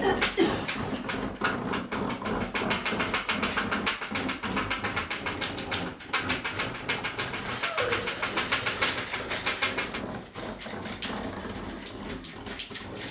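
Rapid, continuous rattling clicks, several a second, easing off after about ten seconds. A dog whimpers briefly near the start and again about eight seconds in.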